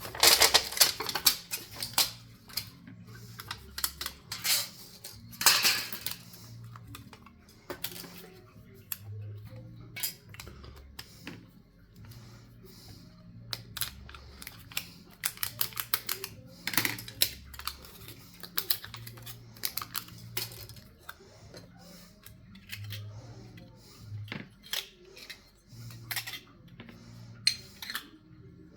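Irregular clicks, taps and scrapes of small parts and tools being handled while an air horn is taken apart and rebuilt, with a couple of louder scraping bursts near the start.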